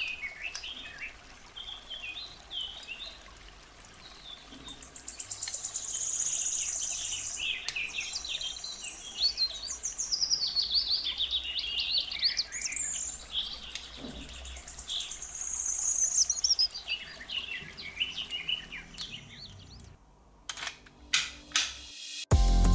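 Birds singing: many short chirps and quick rising and falling whistles, with a few sharp clicks near the end and music starting just before the end.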